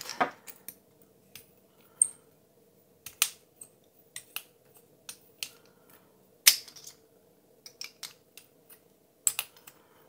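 Scattered small sharp clicks and taps of handling a titanium pen as its refill is put back in and its parts are fitted together, with a louder click about six and a half seconds in.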